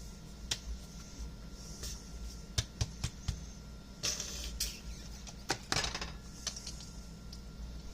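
A spoon clicking and scraping against a container and bowl while scooping sour cream onto mashed potato filling: scattered irregular knocks with a few short scrapes.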